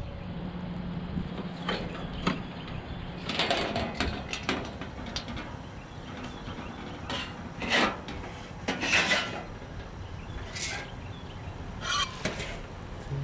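Loose items on a loaded cart clattering and knocking as it is moved along, about a dozen separate rattles and knocks over steady background noise.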